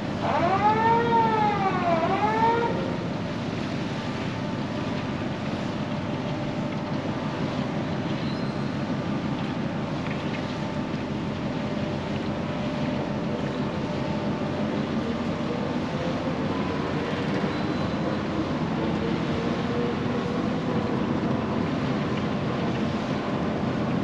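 Three loud wailing calls, each rising then falling in pitch, in the first three seconds. After them comes the steady low rumble and hum of the bulk carrier Federal Kumano's engine as the ship moves up the canal, mixed with wind.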